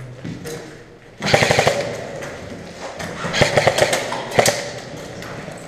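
Airsoft replica rifles firing rapid bursts of shots that echo in an empty concrete building: one burst about a second in, and another from about three seconds in.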